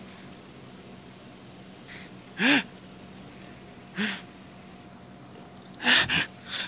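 A person gasping in fright: two short breathy gasps about two and a half and four seconds in, the first with a quick rise and fall in pitch, then a louder pair of breathy bursts near the end.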